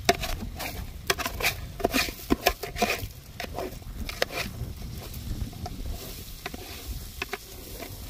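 A pot of bird stew cooking in a little water, giving irregular clicks and crackles, thickest in the first few seconds, over a low rumble.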